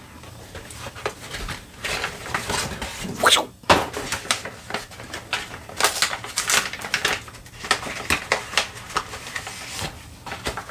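Packaging being opened by hand: irregular rustling, crinkling and scraping of paper and cardboard, with a few louder crackles about three seconds in.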